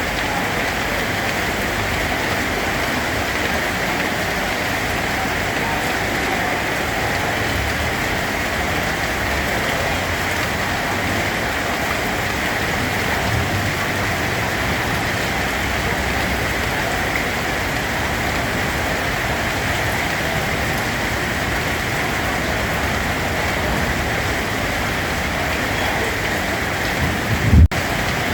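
Steady rain, an even hiss. Near the end a brief low thump, the loudest moment, followed by a split-second gap.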